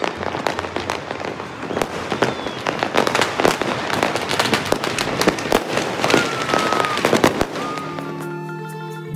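Fireworks and firecrackers going off across a city, many irregular bangs and crackles one after another, with a few short falling whistles. The bangs die away near the end as music comes in.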